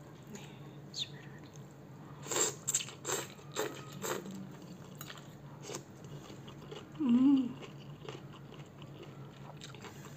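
Close-up mouth sounds of eating small, firm petai (stink beans) with spicy instant noodles: a run of crisp bites and crunches about two seconds in, lighter chewing after, and a short hum about seven seconds in.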